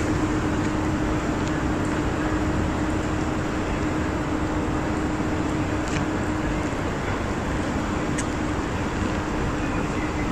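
Steady outdoor city noise of road traffic, with a constant low hum and two faint clicks in the second half.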